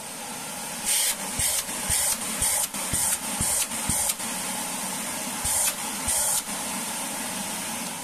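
Samsung vacuum cleaner running through its freshly repaired hose and handle, with a string of short sharp hisses of air, about a dozen in the first few seconds and two more later. The motor begins winding down near the end.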